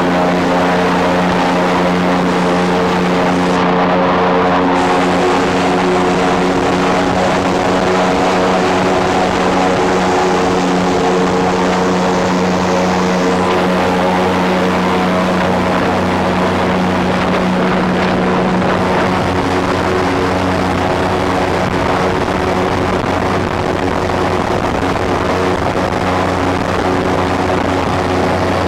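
Airboat's engine and large rear propeller running steadily at cruising speed, a loud, even drone.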